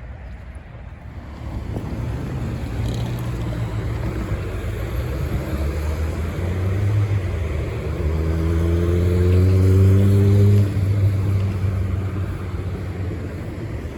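A motor engine running and growing louder, its pitch rising slightly, then dropping off suddenly about ten and a half seconds in.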